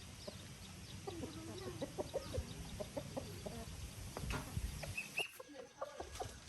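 Chickens clucking in a run of short calls, over a low rumble that falls away about five seconds in.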